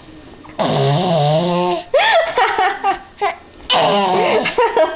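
A young child making silly vocal noises and laughing, in three bouts with swooping pitch.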